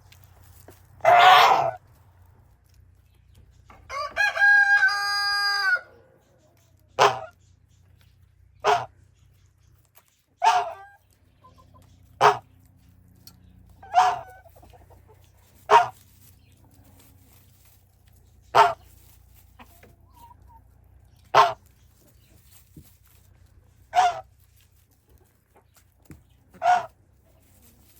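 Chickens: a loud harsh squawk about a second in, then a rooster crowing once for about two seconds, followed by short single calls repeated roughly every two seconds.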